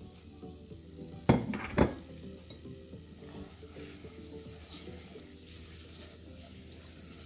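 Silicone spatula stirring semolina into hot ghee and sugar-water in a stainless steel saucepan, the mixture sizzling, with two sharp knocks about a second in, half a second apart.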